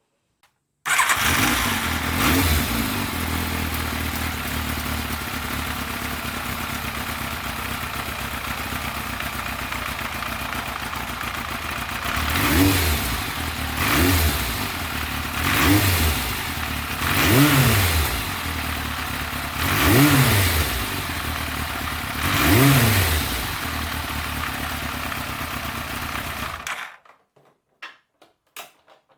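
Yamaha FZR1000 (3GM) inline-four motorcycle engine starting, catching at once and idling steadily, then revved in six short throttle blips before being switched off near the end.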